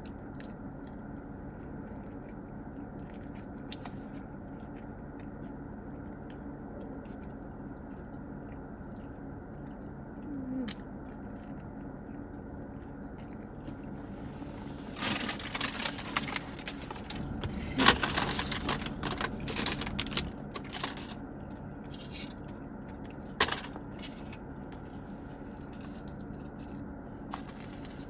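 Crumpled paper fast-food bag rustling and crinkling for several seconds in the middle, over a steady low hum in the car's cabin.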